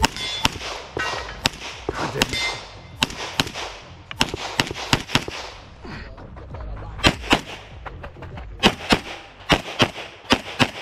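Rapid pistol gunfire from a red-dot-sighted competition handgun: a long string of sharp shots, many in quick pairs, with a break of about a second and a half past the middle before the pairs resume.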